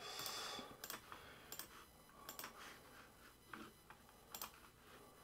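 Faint scattered clicks and taps of computer input at a desk, about five short sharp clicks spread out, with a brief soft rush of noise at the start.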